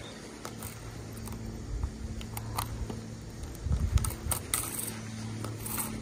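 Baitcasting reel being handled while a backlash is picked out of the spool: scattered small clicks and rustles, with a cluster of low handling thumps about four seconds in, over a steady low hum.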